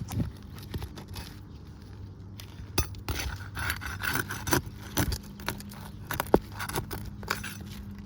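Irregular scraping and sharp clicks of a metal pry tool working under brittle asphalt shingles to break their seal. The shingles are tearing as they are lifted, with the mat pulling away (mat transfer).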